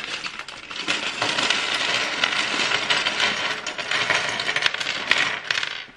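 A bag of small plastic Lego pieces being poured out and clattering onto a tabletop: a dense, continuous patter of sharp clicks.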